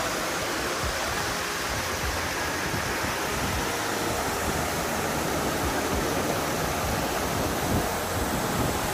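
A creek's water running steadily, an even rush of noise.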